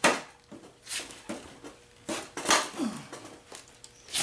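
Ratchet wrench turning the 19 mm self-locking axle nut on a 1970 Honda CT70 wheel. A loud metallic snap comes right at the start, then irregular clicks, knocks and a short creak as the nut is worked loose.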